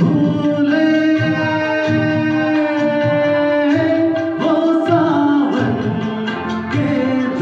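Music: a Hindi song, with long held notes in the melody over a steady beat of low percussion strikes.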